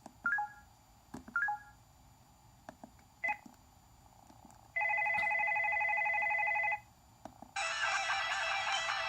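Samsung Convoy cell phone's button clicks and short electronic beeps as its ringtone list is stepped through. From about five seconds in, a steady electronic ringing tone sounds for two seconds. Near the end a melodic ringtone begins to play from the phone's speaker.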